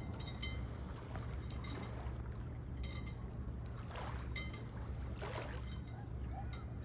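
Small waves lapping against a stone lakeshore, with a steady low rumble underneath and two louder splashes about four and five seconds in.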